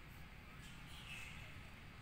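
Faint outdoor background: a steady low rumble with a faint, short, high-pitched chirp about a second in.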